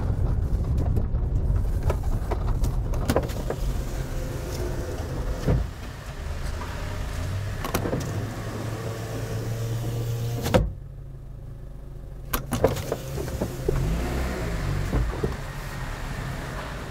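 In-cabin sound of a 2005 Honda Element's freshly replaced K-series four-cylinder engine and tyres as it creeps along slowly: a low, steady rumble, the engine itself running quiet. A few sharp clicks and knocks are heard along the way.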